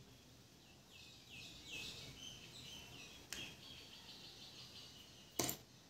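A bird singing faintly in the background: a quick run of short falling chirps, then a steadier warbling trill. A light tap comes about three seconds in, and a sharper click near the end, the loudest sound, from the earbud parts being handled.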